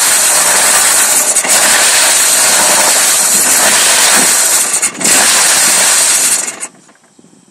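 BMW E36 M3 Evo's 3.2-litre straight-six running at a rough idle, loud and dense, with brief dips about a second and a half in and again near five seconds. About six and a half seconds in it cuts off, leaving only faint background.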